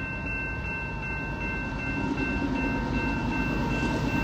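Low rumble of an approaching CP freight train's diesel locomotives, growing slowly louder.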